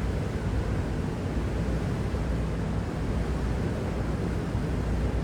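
Steady low rumble of wind buffeting the microphone over a boat's engine, on the deck of a whale-watching boat.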